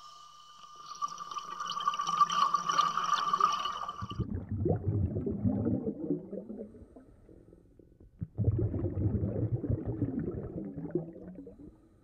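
Underwater sound of a scuba diver breathing: a hiss with faint steady tones for the first few seconds, then two low bubbling bursts of exhaled air, each about three seconds long, with a short pause between.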